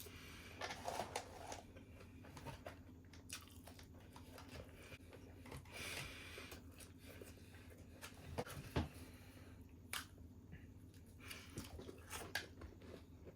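A person eating close to the microphone: chewing and biting, with scattered crunches and clicks, over a low steady hum.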